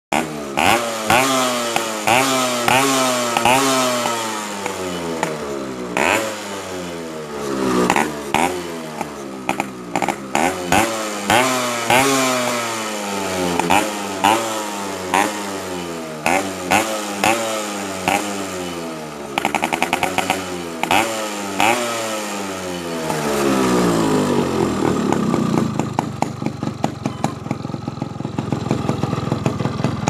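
Yamaha RX135's two-stroke single-cylinder engine revved in quick repeated throttle blips, its pitch rising sharply and falling back over and over. After about twenty-three seconds it settles into a steady idle.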